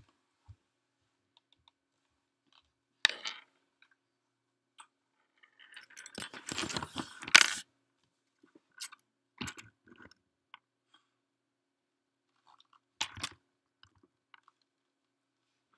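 Scattered handling noises: a few short rustles and clicks. About six seconds in comes a longer crackling rustle that ends in a sharp click.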